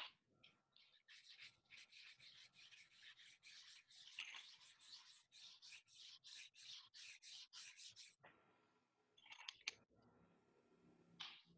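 Quiet, quick back-and-forth strokes of a drawing stick scratching across paper, about four a second for some seven seconds, then a few separate marks near the end.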